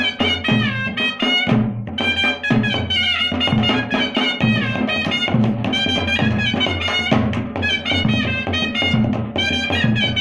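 Pahari folk music: a shehnai playing a melody with gliding, ornamented notes over nagara kettle drums beaten with sticks in a steady rhythm, the taal being teen taal. The shehnai breaks off briefly about a second and a half in.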